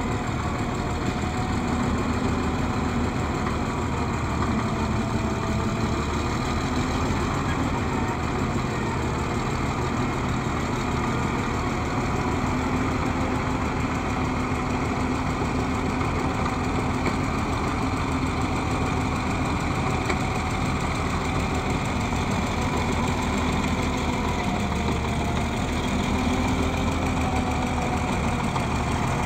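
Caterpillar D6 crawler tractor's diesel engine running steadily at low speed while it tows a heavy harvester.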